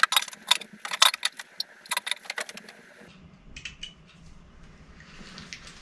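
A quick run of light metallic clicks and taps as a bare metal fuel tank is set down onto a motorcycle frame and shifted into place, with a few fainter clicks about halfway through.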